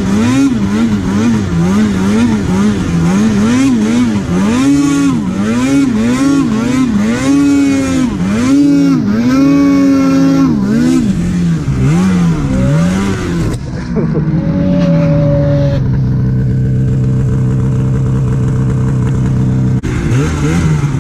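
Two-stroke mountain snowmobile engine revved up and down over and over, about once a second, as the throttle is blipped through deep powder. About 14 s in it drops to a steady idle, with one short blip near the end.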